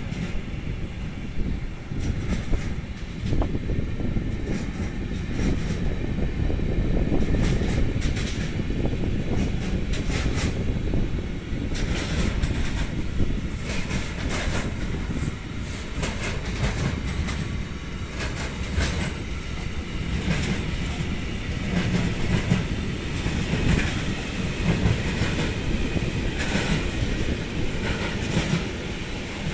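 Intermodal freight train's wagons rolling past: a steady rumble with the wheels clicking irregularly over the rail joints.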